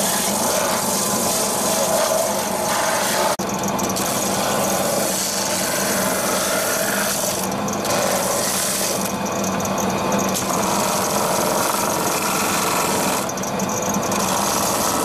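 A cobbler's shoe finishing machine running, its motor driving a row of spinning sanding and buffing wheels, with the rasp of a leather shoe pressed against them. A steady hum runs under a hiss that swells and fades as the shoe is moved along the wheels, with a brief dip about three seconds in.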